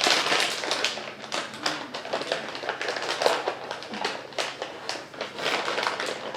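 Irregular light tapping and rustling of small objects being knocked or moved about, many quick strokes without a steady rhythm.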